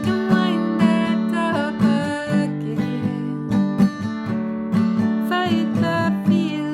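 Acoustic guitar strumming chords steadily, an instrumental stretch after the last sung line.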